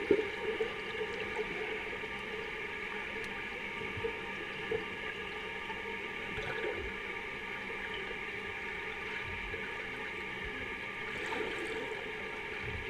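Muffled underwater ambience in a swimming pool: a steady hum and hiss, with a few faint splashes and bubbling from swimmers at the surface.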